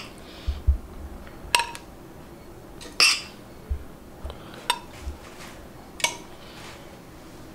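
Metal serving spoon clinking against a pot while biryani rice is scooped out onto a plate: about four sharp clinks, roughly a second and a half apart.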